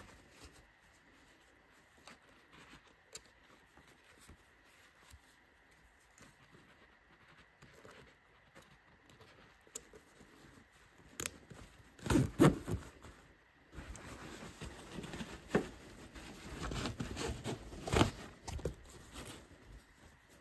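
Hands handling a baby playpen's fabric, mesh and frame: rustling, scraping and a few sharp clicks, quiet at first, then busiest about halfway through and again near the end.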